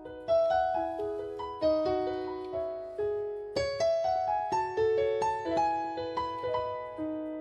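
Background music: a piano playing a melody of ringing notes over chords, each note struck and then fading.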